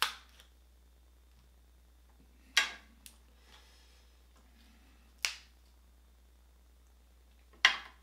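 King crab leg shells being cracked and snapped open by hand: about five sharp, short cracks a couple of seconds apart, with quiet in between.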